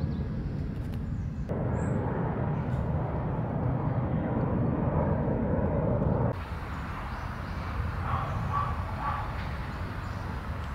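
Outdoor background noise with a steady low rumble like distant traffic; its character changes abruptly twice where the footage is cut, and a few faint short tones sound near the end.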